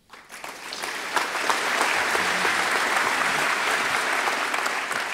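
Audience applauding, building up over the first second into steady, dense clapping.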